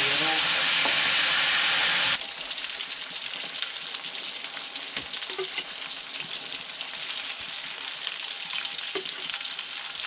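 A loud, even hiss for about two seconds that cuts off suddenly. Then Spanish mackerel slices sizzle and crackle in hot oil in a wok, with a few clinks of a metal spatula against the pan.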